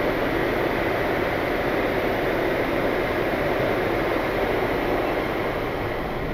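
Steady rushing of air and engine noise on the flight deck of a Boeing 787 on final approach.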